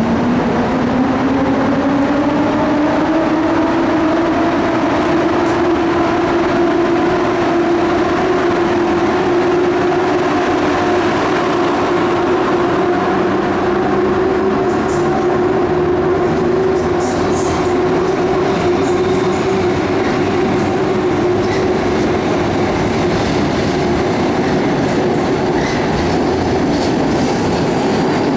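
EP07 electric locomotive with a rising whine over the first few seconds that levels off into a steady hum, under the general rumble of rail noise. Faint high clicks come in over the second half.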